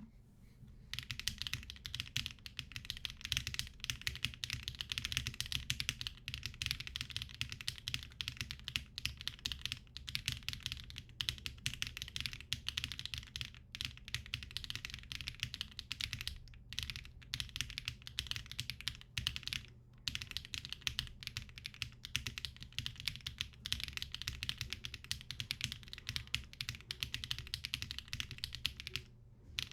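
Fast continuous typing on a Cycle7 mechanical keyboard with HMX Hyacinth V2U switches, aluminum case and no foam inside. It starts about a second in, breaks off briefly a few times, and pauses just before the end.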